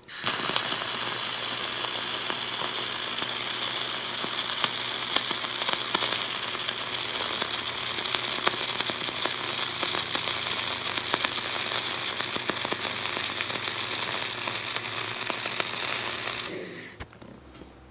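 Dual-shield welding (flux-cored .045 wire with shielding gas) from a Miller Millermatic wire-feed welder: the arc crackles steadily, sizzling with small pops. It cuts off about sixteen seconds in when the machine stops feeding wire, its spool having run out.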